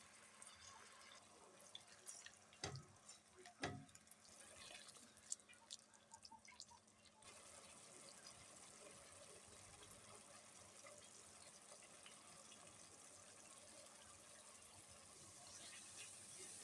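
Faint kitchen sounds: several knocks and clinks in the first seven seconds or so, then a steady faint hiss of water running.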